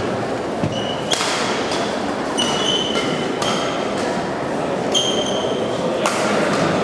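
Badminton rally: rackets striking a shuttlecock about once every second or so, with short high squeaks of shoes on the court floor, over a spectator murmur in a large hall.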